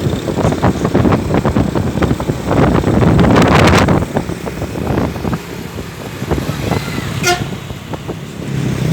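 Roadside traffic with vehicles going past, loudest as one passes about three to four seconds in, and a very short horn toot near the end.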